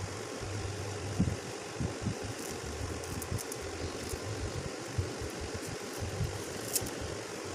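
A steady low hum under scattered soft knocks and faint ticks, as a newborn puppy is handled and shifted about on a laminate tabletop.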